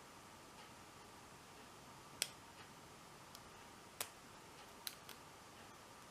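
Faint, sharp clicks from a lock pick and tension wrench working the pin stack of an American Lock 1100 series padlock during single pin picking: a few scattered clicks, the loudest about two seconds in and again about four seconds in, with two small ones near the end.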